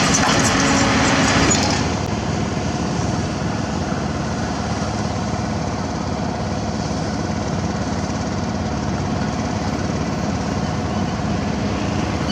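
Diesel engine of heavy construction machinery running steadily. It is louder and harsher for about the first two seconds, then settles to an even drone.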